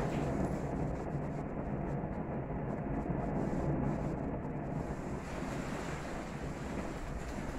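Gas grill burners running under a tri-tip, a steady low rush of flame.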